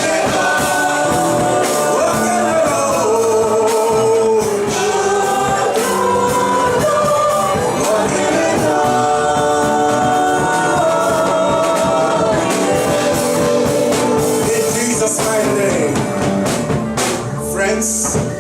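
Live gospel worship music: singing voices holding long notes over a band with a steady drum beat.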